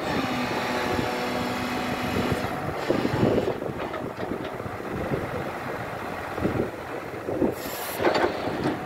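Hyundai R210 hydraulic excavator's diesel engine running while the boom, arm and bucket are worked, with a steady whine for the first couple of seconds and then an uneven, changing machine sound with a brief hiss near the end.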